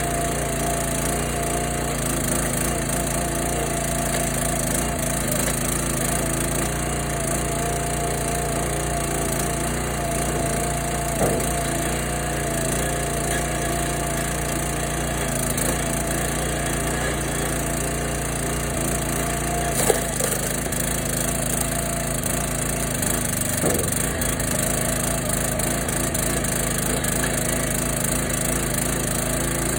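Kohler 6.5 hp engine of a 22-ton Dirty Hand Tools log splitter running steadily while wood is split, with a few sharp cracks of splitting wood, the loudest about twenty seconds in.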